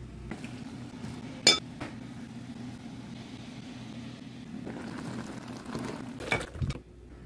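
Metal cookware clinking: a sharp, ringing clink about a second and a half in, then a couple of clanks and a dull knock near the end, over a steady low hum.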